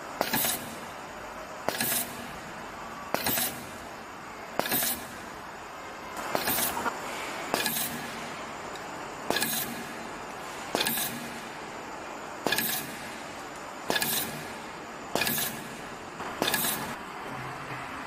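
Pneumatic wire stripper cycling about every second and a half as wires are fed in one at a time. Each stroke is a short, sharp clack of the clamping and stripping jaws with a burst of air, twelve strokes in all, over a steady background.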